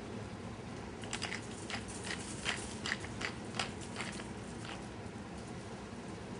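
Whole red snapper being seasoned with salt and pepper: about a dozen short, irregular crunchy clicks over three and a half seconds, starting about a second in.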